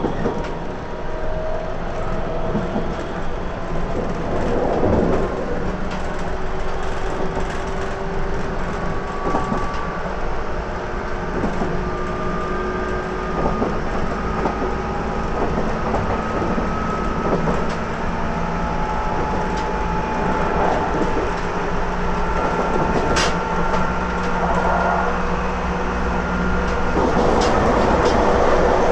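JR Kyushu 811 series electric train with outside-fan traction motors running, heard from inside the car. The motor whine climbs slowly in pitch as the train gathers speed, over a steady rumble of wheels on rail, with a few sharp clicks over rail joints.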